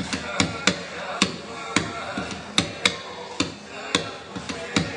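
Hula chant in the Hawaiian language, a voice chanting over sharp wooden knocks that come about twice a second in an uneven rhythm.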